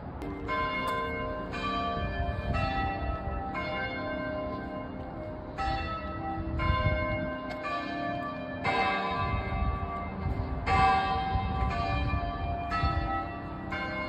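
Tower bells of St. Peter in Chains cathedral ringing in sequence, about one strike a second. Each stroke is a different bell and rings on under the next, with a short pause about halfway through.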